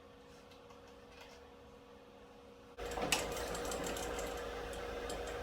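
Laguna Fusion F3 table saw running with a steady motor hum, then about three seconds in the blade starts cutting through a board and a loud, dense cutting noise sets in and keeps going.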